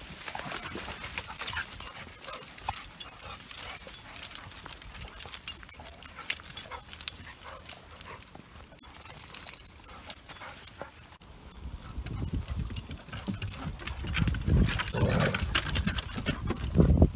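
Footsteps and dogs' paws moving along a grassy path, with swishing and small clicks. From about two-thirds of the way in come heavier, louder thuds as walker and dogs cross a wooden footbridge.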